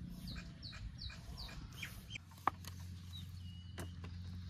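Short, falling bird chirps repeating about three times a second through the first half, with a single sharp click about two and a half seconds in. A steady low hum sets in just after two seconds.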